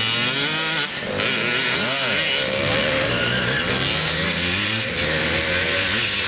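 Several motocross bikes racing on a dirt track, their engines revving up and down, one after another, as the riders come down a slope and through a turn.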